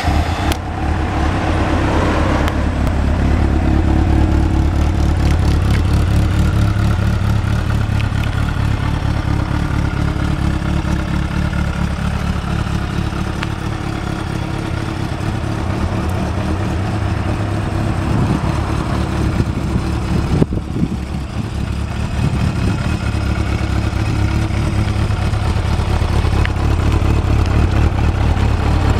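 Suzuki GSX400 Impulse inline-four firing up through an aftermarket Yoshimura exhaust, running a little fast for a couple of seconds and then settling into a steady idle. About two-thirds through, the revs rise briefly a couple of times.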